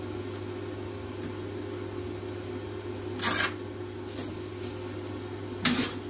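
Packaging being handled and pulled off a new air fryer: two short, sharp handling noises, one about three seconds in and one near the end, over a steady low hum.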